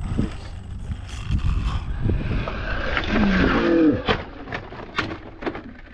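Electric motor of an RC scale crawler truck whining as it revs up and down while the truck slips on a sandy slope, with wind rumbling on the microphone and a few sharp clicks and knocks near the end.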